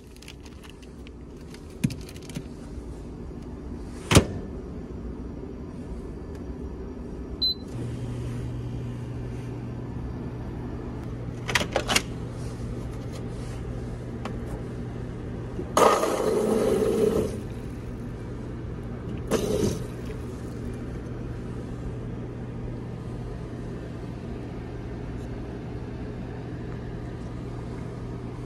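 Microwave oven shut with a sharp click; a short beep follows, and the oven starts running with a steady low hum, all over the ship's constant low rumble. About halfway through, water runs from a hot-water dispenser into a paper cup for about a second, with a shorter rush a few seconds later.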